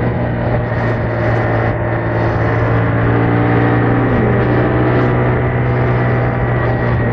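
Yamaha MT-07's parallel-twin engine through its stock exhaust, held at steady revs while riding.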